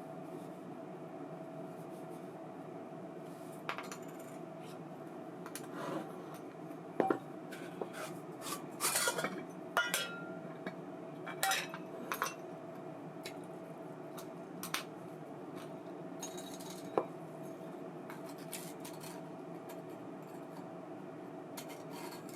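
Small metal parts and tools clinking and tapping in scattered bursts during reel servicing, busiest in the middle, over a steady background hum with one constant tone.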